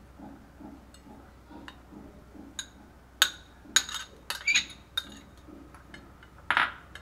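A metal spoon and ceramic bowl clinking and scraping against a glass mixing bowl as chopped banana flower is tipped and spooned in. A string of sharp, ringing clinks starts about three seconds in, and the loudest comes near the end.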